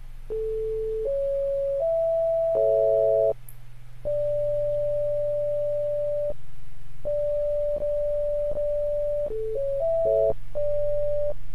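Pure sine-wave tones from a browser-based equal-temperament synthesizer playing a short composed sequence. Three single notes step up (A, C sharp, E), then sound together as an A major chord. Held notes follow, with small clicks where each note starts and stops. Near the end the same pattern comes back at a quicker pace.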